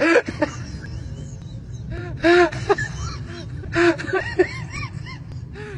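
Metro car running with a steady low rumble, over which a person makes bursts of short, pitched vocal sounds like gasps or whimpers, about two seconds in and again about four seconds in.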